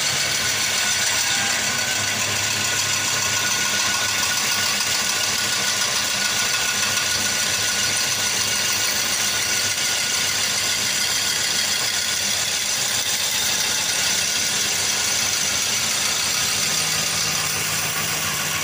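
Bench-type grinding wheel running steadily with a sickle's steel blade held against it, grinding the edge: an even high whine over a hiss, with no let-up.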